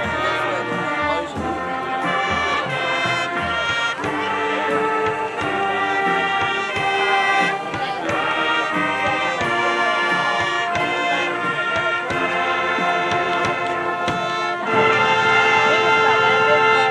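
High school marching band playing a rock arrangement, with brass (trumpets and trombones) carrying the melody. A loud held chord near the end cuts off suddenly.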